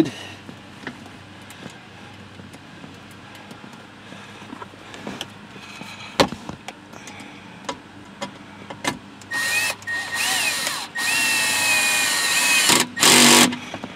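A few faint clicks and taps, then about nine seconds in a small Milwaukee cordless drill runs a bolt in. It goes in several short bursts, its motor whine rising and falling, with the last burst the loudest.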